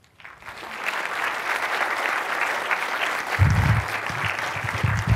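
Audience applauding, building over the first second and then holding steady, with two short low thumps near the end.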